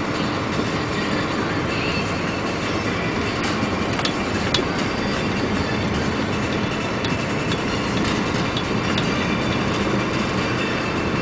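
Steady rumbling noise of a heavy vehicle on the move, with scattered sharp clicks and rattles.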